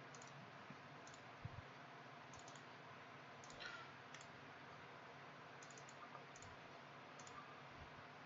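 Faint, scattered computer mouse clicks over near silence.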